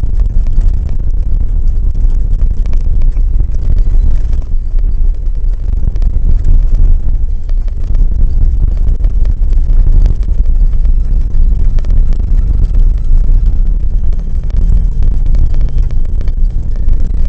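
Steady, loud low rumble of a vehicle and trailer driving on a gravel road, with wind buffeting the microphone and scattered small knocks.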